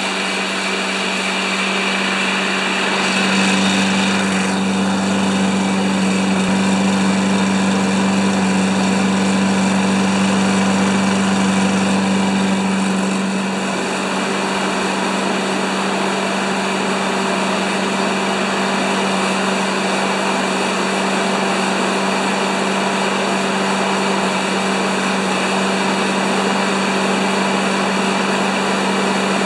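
Briggs & Stratton Quantum single-cylinder four-stroke engine on a Craftsman walk-behind mower, running steadily at a slightly low speed. It runs a little louder from a few seconds in until about halfway, then settles down.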